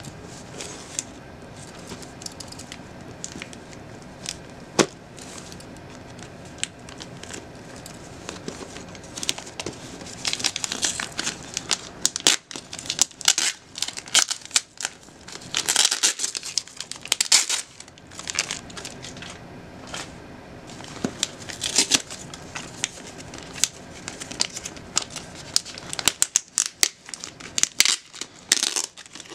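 Paper and tape wrapping crinkling and tearing as a small package is unwrapped by hand: fairly quiet handling for the first several seconds, then irregular bursts of crinkling with sharp crackles and tearing.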